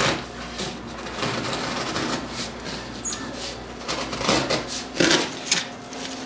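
Steak knife sawing through layered corrugated cardboard: a run of short, rough rasping strokes at an uneven pace, the loudest a pair about five seconds in.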